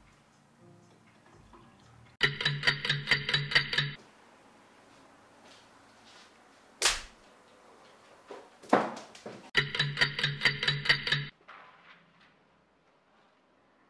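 Two bursts of rapid pulsed buzzing, about four pulses a second and each under two seconds long, with two short sharp whooshes between them.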